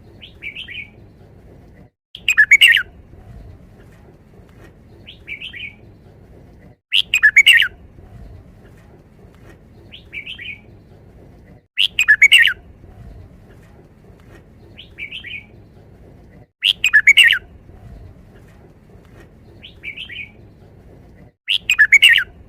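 Red-whiskered bulbul singing its five-syllable wild-type song: a loud rapid phrase about every five seconds, each preceded by a short softer call, five times over, with a steady low hum underneath.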